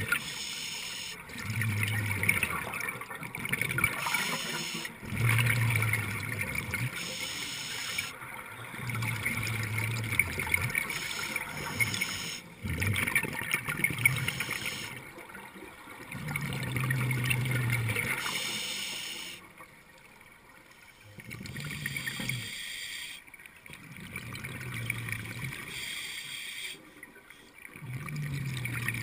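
Scuba diver's regulator breathing underwater: a hiss with each inhalation, then a gurgling rush of exhaled bubbles, about one breath every three to four seconds.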